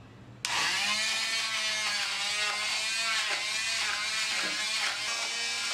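Handheld immersion blender switched on about half a second in and running steadily as its blade purées chunks of mango. Its pitch dips and recovers several times as the blade bites into the fruit.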